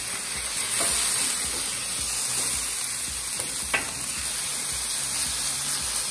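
Diced chicken breast sizzling steadily on the hot non-stick cooktop of a Pit Boss 5-burner flat-top griddle, with a scraper and spatula scraping and tapping the surface as the pieces are turned and chopped; a sharper click comes a little before four seconds in.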